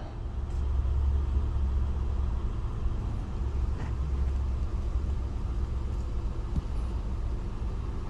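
2010 Honda Pilot's V6 engine idling steadily, a low hum heard from inside the cabin.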